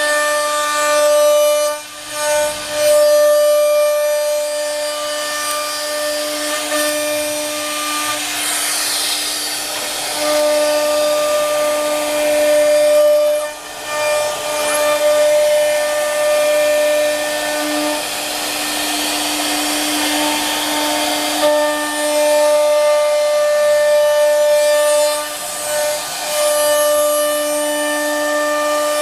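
CNC router running: its air-cooled spindle gives a steady high hum while the stepper motors add tones that start, stop and shift pitch as the gantry moves. The bit cuts wood with a rasping noise at times.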